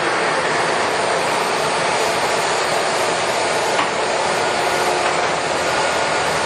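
American Pacemaker 27" x 240" engine lathe running under power, its spindle driven through the headstock gearing by a 40 HP main motor, giving a steady, dense mechanical running noise. A single sharp click comes about four seconds in.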